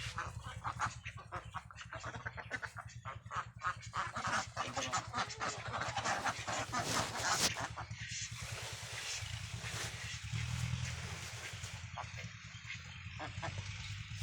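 A flock of Khaki Campbell ducks quacking in a dense, rapid chorus that turns into a more even, blurred din after about eight seconds, with a steady low hum underneath.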